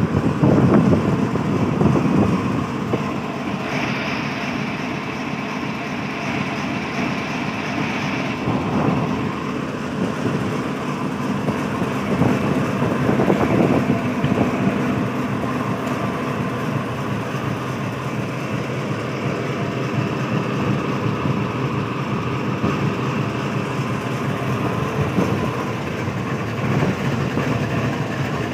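GE U40 diesel-electric locomotive's engine running steadily at low power, close by. A high whine joins about four seconds in and fades a few seconds later.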